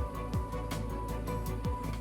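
Background music with a beat: deep kick-drum hits that drop in pitch, with crisp percussion ticks between them.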